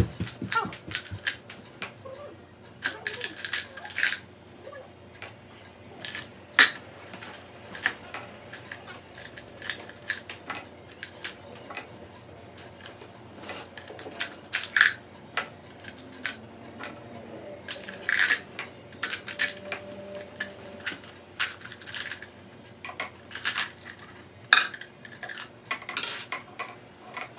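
Small hard-coated candies clicking and clattering against glass jars and a plastic cup as they are handled and dropped in, in irregular scattered clusters of sharp clicks.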